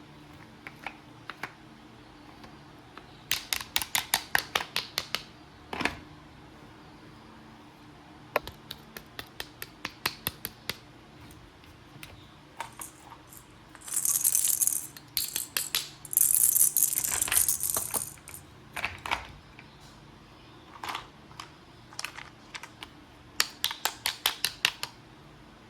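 Toys being handled or played with: runs of rapid small clicks, about seven a second, each lasting about two seconds and coming three times, with two bursts of crinkly rustling in the middle.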